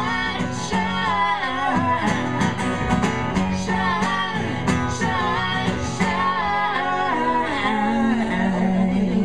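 Live acoustic band of acoustic guitar and upright bass under a woman's lead vocal with a man's harmony, the last lines of the song. Near the end the voices settle onto a long held note.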